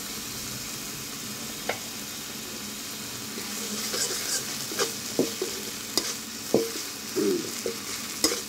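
Onion, garlic and cumin pastes sizzling steadily in hot oil in a metal kadai. From about four seconds in, a metal spatula stirs them, knocking and scraping against the pan in quick irregular strokes.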